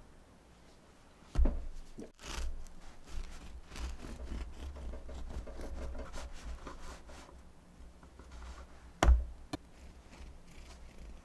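Serrated bread knife sawing through a loaf of milk bread, a run of rasping strokes through the crust and crumb. A loud knock on the wooden cutting board comes about a second in, and another near the end.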